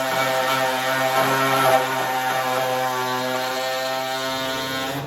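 Power tool running as it cuts through a snowmobile's metal tunnel: a steady motor whine over a hiss, swelling briefly about a second and a half in.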